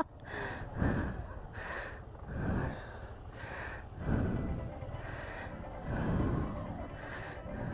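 Repeated heavy breaths close to the microphone, about one a second and irregular, from a rider working a small motorcycle along a rough, muddy trail. A low motorcycle engine runs underneath.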